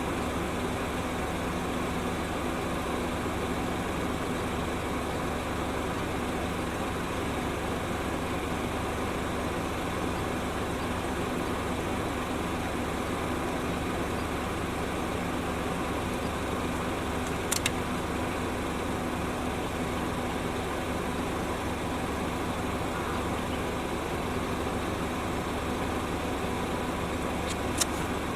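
Steady mechanical hum with a constant low drone, like an idling engine, broken by a brief sharp click about two thirds of the way through and another near the end.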